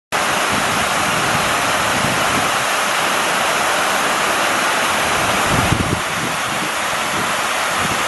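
Steady rush of a waterfall spilling down a rock wall into a pool. About five and a half seconds in, a few low gusts of wind buffet the microphone.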